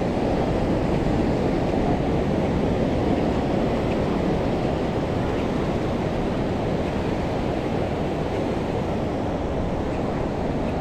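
Steady rushing noise of ocean surf, with wind on the microphone.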